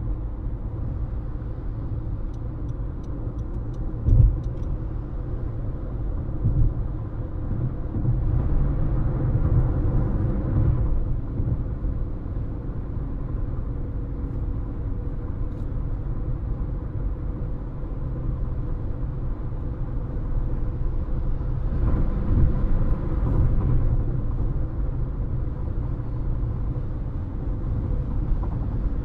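A car driving at highway speed: a steady low rumble of tyres and engine, with a single thump about four seconds in and two swells of louder noise partway through.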